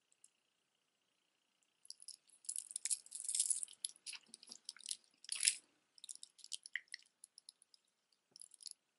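Costume-jewelry necklaces rattling and clicking as hands handle them: a silver-tone metal chain necklace is put down and a strand of glass and plastic beads is picked up. The rattling starts about two seconds in, comes in uneven bursts and is loudest around three and five seconds in.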